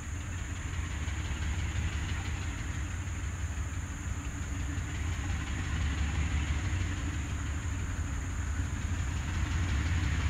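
Two GE B23-7 diesel-electric locomotives approaching from a distance: a steady low engine rumble that grows slowly louder.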